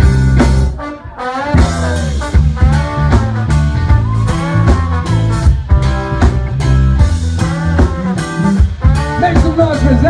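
Live band playing loud, with a ska-flavoured groove of bass, drums and electric guitar under a bending melodic lead line; the music dips briefly about a second in.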